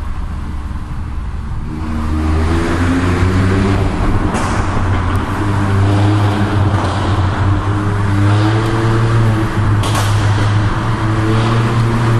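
Proton X50's turbocharged three-cylinder engine and exhaust under acceleration, the revs climbing several times through the gears, with a few sharp cracks about four, five and ten seconds in. The cracks are the pops and bangs from an ECU remap. Heard from inside the cabin in a tunnel.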